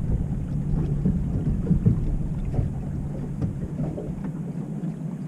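Low, steady motor drone, like a boat engine running, that weakens about three seconds in, over a low rumble.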